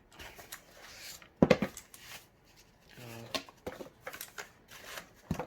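Cardboard box and packaging being opened and handled: rustling, scraping and small clicks, with a sharper knock about a second and a half in.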